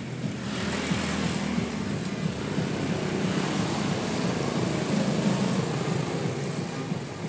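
Steady engine noise of a motor vehicle running nearby. It swells in about half a second in and holds for several seconds.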